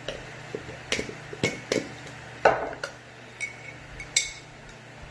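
Clinks and knocks of a glass honey jar and a metal spoon being handled over a small bowl: about eight sharp, separate knocks, the loudest about two and a half seconds in, and two near the end with a short ring.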